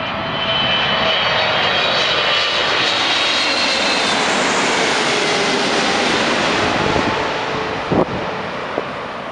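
Jet noise of a Boeing 777-300ER's twin GE90-115B turbofans as the airliner passes low overhead on landing approach: a loud rush with a high fan whine that slowly falls in pitch, easing off near the end. Two brief knocks come about eight seconds in.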